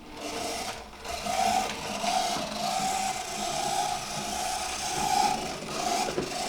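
Small electric motor of an OO-gauge Oxford Rail Adams Radial 4-4-2T model locomotive running at speed with a noisy, steady whine that dips briefly about a second in. The owner thinks the noise is probably dried-up lubrication from the model having sat a long while.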